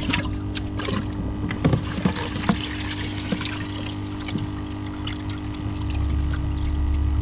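Water splashing and dripping as live baitfish are scooped out of an aerated bucket with a plastic scoop-colander, with a few sharp splashes about two seconds in. Under it runs the steady hum of an aquarium air pump.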